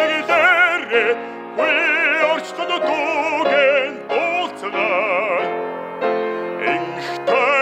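Male classical-style singer singing long held phrases with wide vibrato, accompanied by a grand piano; the piano carries on through the short breaks between vocal phrases.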